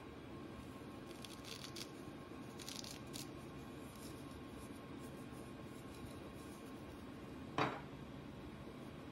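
Soft rustles and scrapes of tubular gauze sliding off a plastic finger-bandage applicator, a few in the first few seconds, then one sharp knock near the end as the plastic applicator is set down on the table, over a steady low hum.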